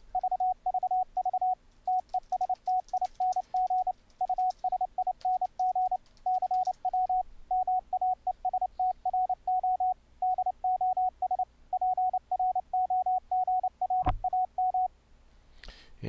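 Morse code sidetone from the CW Maestro DOS keyboard keyer: one steady mid-pitched tone keyed on and off in dots and dashes, sending the typed text "testing using CW Maestro DOS program", stopping shortly before the end.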